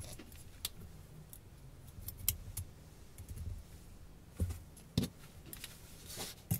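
Small metal parts of a Rose V2-S rebuildable tank atomizer clicking and tapping together as they are handled while it is stripped of its O-rings. The clicks are light and scattered, with two sharper knocks about four and a half and five seconds in.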